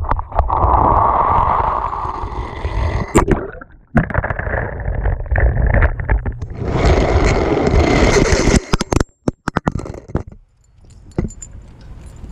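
Hot Wheels toy car rolling fast down orange plastic track, its plastic wheels rumbling and scraping on the track, heard from a camera riding on the car, in several stretches cut together. A quick run of clicks and clatters comes about two-thirds of the way in, and it is quieter near the end.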